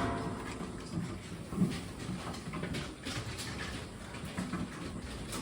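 A sow grunting softly a few times, with faint rustling.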